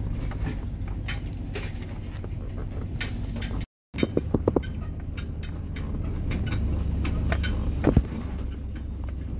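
Inside a vehicle's cab driving slowly along a rough dirt woods trail: steady low engine and road rumble, with scattered rattles and knocks from the bumps, one harder knock near the end. The sound cuts out briefly about four seconds in.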